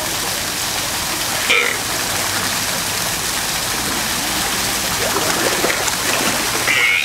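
Steady rush of running water. Two short high-pitched sounds cut through it, one about a second and a half in and one near the end, with some light crackling in between.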